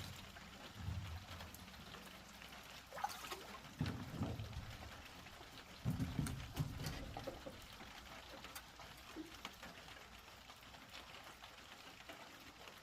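Light rain with dripping and trickling water, broken by three dull low thuds with a short splash, about a second, four seconds and six seconds in.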